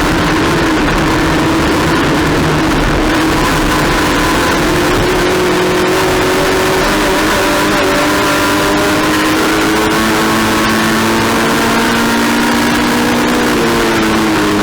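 Race car engine running under load, its pitch drifting slowly up and down as the car goes through the gears and corners, over steady road and wind noise.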